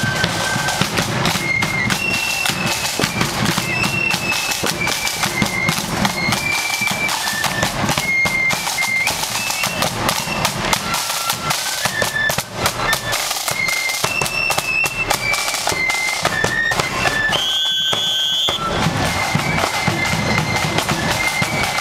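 Marching flute band playing: flutes carry a stepping melody over rapid side-drum rolls and beats. About three-quarters of the way through, the drums stop for about a second under a single high held note, then start again.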